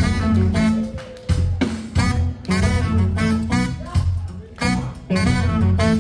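A live jazz band playing a swinging number, with a melody line over a strong, steady bass.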